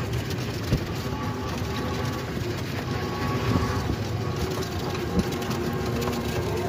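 Electric toto rickshaw driving along a road, heard from the passenger seat: a steady road rumble and body rattle with a few small knocks.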